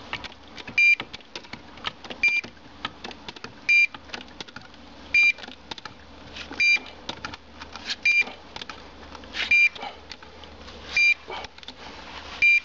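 НПР low-frequency locator beeping: a short high beep about every second and a half, nine in all. The beeps show it is picking up the ПНТ-00 transmitter's signal through the steel walls of the pressurised hydro-test stand. Irregular clicks and knocks sound between the beeps.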